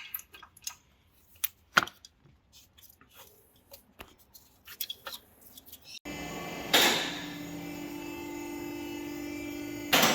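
Scattered clinks and knocks of hand tools on metal parts under a vehicle. After about six seconds the sound switches abruptly to a steady mechanical hum, with a loud knock about a second later and another near the end.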